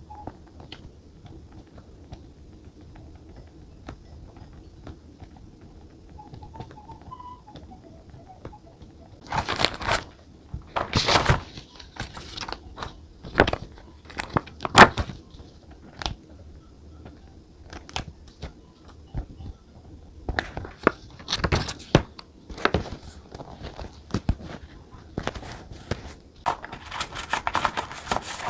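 Paper and sticker sheets being handled at a desk: rustling, crinkling and short tearing sounds in irregular bursts, starting about a third of the way in.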